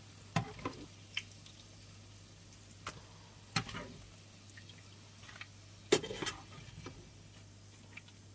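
Metal slotted skimmer knocking and scraping against a frying pan a handful of times as fried salt-cod fritters are lifted out of hot sunflower oil, over a faint sizzle of the oil. The loudest knock comes about six seconds in.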